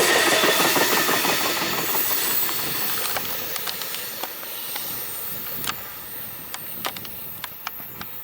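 A passing train's wheels and cars rushing on the rails, fading steadily as it moves away, with scattered sharp clicks in the second half.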